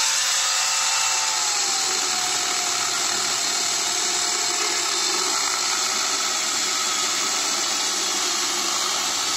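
Corded electric angle grinder fitted with a chainsaw bar and chain, cutting into a log with a steady, high motor whine. About one and a half seconds in, the pitch drops slightly as the chain bites into the wood, then holds steady under the cutting load.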